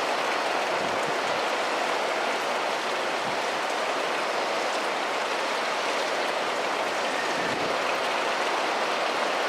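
KiHa 120 diesel railcar running along the line, giving a steady, even rushing noise of wheels on rail and running gear with no distinct engine note or rail-joint clicks.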